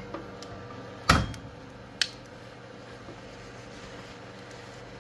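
Door of a COMFEE toaster oven air fryer pulled open: a knock with a low thump about a second in, then a sharp click about a second later, over the steady hum of the running oven.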